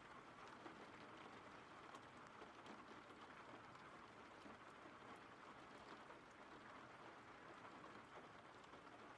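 Faint, steady rainfall: an even patter of rain with scattered soft drop ticks.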